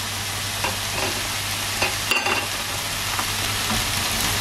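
Mushrooms, red pepper and olives sizzling steadily as they sauté in a frying pan, with a few light clicks of utensils against the pans about one and two seconds in.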